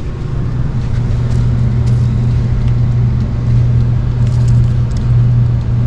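Carrier heat pump system running with a steady low hum that builds over the first second. It is heating although cooling was called for, because the thermostat is not energizing the reversing valve.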